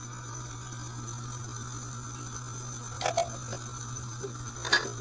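Steady low hum under a faint hiss, with a few short utensil clinks: a quick pair about three seconds in and a louder single clink near the end.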